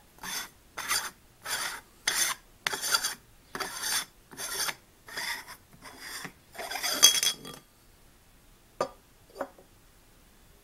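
Rhythmic rubbing: about a dozen rasping strokes, a little under two a second, as a hand rubs along the body of a spotting scope. Two sharp clicks about half a second apart follow near the end.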